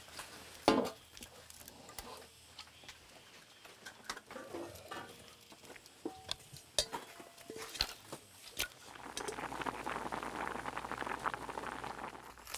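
Scattered clinks and knocks of metal bowls and lids, with one sharp knock under a second in. From about nine seconds in, a pot of whole potatoes bubbling at a rolling boil, a dense crackling simmer.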